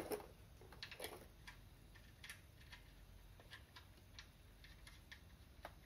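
Faint, irregular small metallic ticks, two or three a second, as the oil drain bolt is threaded back into the Toyota MR-S's oil pan by hand.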